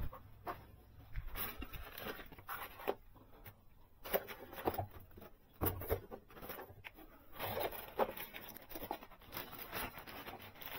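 Irregular light clicks and rustling from hands handling a Nissan VQ engine's valve timing control (VTC) solenoid during a bench check. The solenoid, which should tick when working, is judged faulty.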